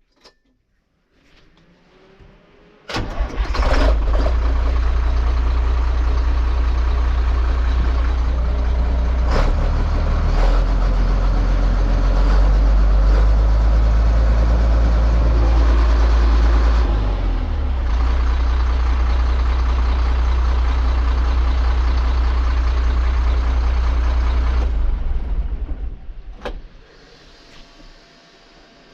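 International DT466 inline-six diesel truck engine firing up abruptly about three seconds in and running steadily, a little louder in the middle, then shut off about 25 seconds in, easing down for a second or so. A single sharp click follows shortly after it stops.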